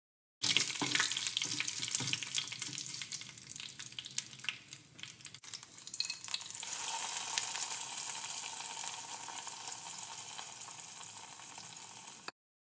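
Hot-oil tempering of dried red chillies and curry leaves crackling and popping. About six and a half seconds in it turns to a steady sizzle, fading slowly, as it is poured over the yellow curry in a clay pot.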